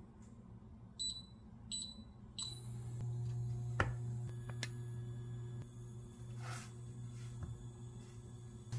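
Haatz induction cooktop's touch panel beeping three times as it is switched on and set, then the hob's steady low hum as it heats the pan. A sharp knock comes a little under four seconds in, as a slice of bread goes into the pan.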